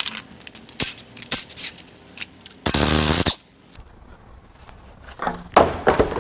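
Metal hand tools clicking and clinking on engine fasteners, then a cordless power tool runs once for about half a second just before the middle. Near the end a loosened metal part drops and clatters, with a few loud ringing clanks.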